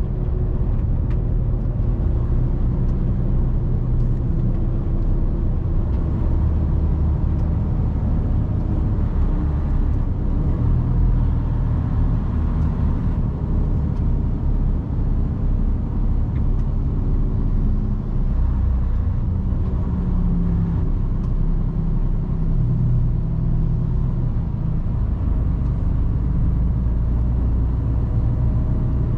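Mercedes Actros truck's diesel engine running with tyre and road noise, heard from inside the cab while driving; the engine note rises and falls a little.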